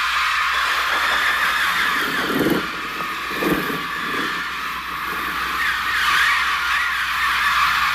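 Mixtur-Trautonium electronic bird sounds: a dense, continuous mass of shrill, warbling cries like a flock of birds screeching. Two lower, duller bursts come a couple of seconds in and again a second later.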